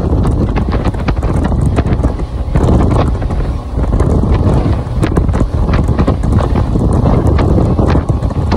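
Heavy wind buffeting the microphone on a boat running at speed across open sea, with scattered sharp knocks throughout.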